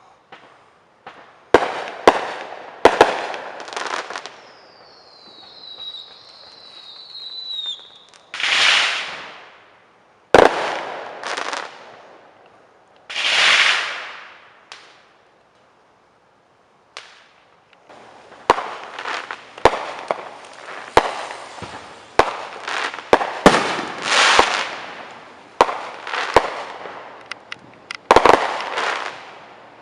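Fireworks display: sharp bangs of shells bursting, a whistling shell with a falling pitch about five to eight seconds in, and two drawn-out hissing whooshes. From about eighteen seconds on, the bangs come thick and fast with crackling between them.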